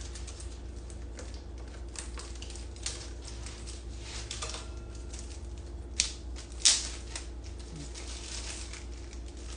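Scattered light clicks and taps of plastic parts and packaging being handled while the cocktail maker is unpacked and fitted together, with two sharper knocks about six seconds in, under a steady low hum.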